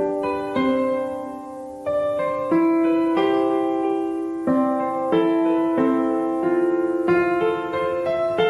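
Background music: slow, gentle piano chords struck every second or so and left to ring.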